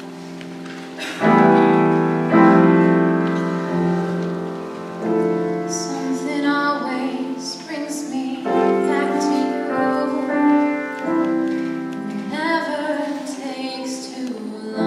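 Solo piano playing chords, then a woman's solo voice enters about five or six seconds in and sings over the piano accompaniment.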